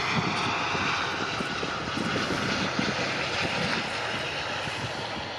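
Boeing 757 jet engines heard as the airliner passes: a steady rushing noise with a high whine above it, slowly fading toward the end.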